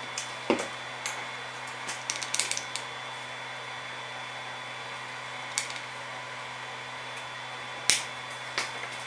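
Steady machine hum with scattered light clicks and taps of wood and a plastic glue bottle as glue is brushed into slots and small wooden tenons are set into them; the loudest tap comes near the end.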